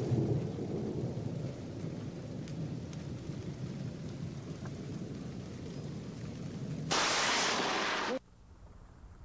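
Rain falling through a thunderstorm with low rolling thunder. About seven seconds in, a sudden very loud crack of a close lightning strike lasts about a second, then the sound cuts off abruptly.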